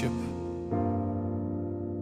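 Worship keyboard music holding sustained chords, with a new chord coming in under a second in.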